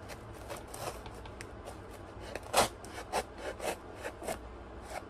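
Folding pocket knife cutting open a cardboard shipping box: a series of short scraping cuts through cardboard, the loudest about halfway through, followed by several quicker strokes.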